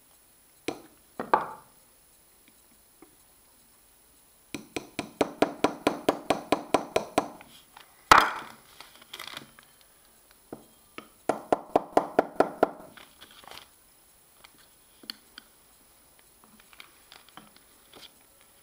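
Small hammer tapping a pin punch to drive a knurled pin into the new gear's shaft in a KitchenAid 5KPM5 stand mixer gearbox: two runs of quick ringing metal taps, about six a second, with one harder blow between them and a few lighter taps near the end.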